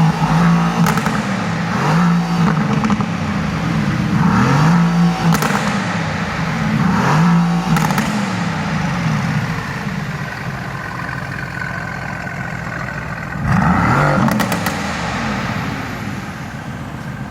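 Car engine being revved and let fall back, again and again about every two seconds, then running more steadily with one more rev near the end. A few sharp clicks sound over it.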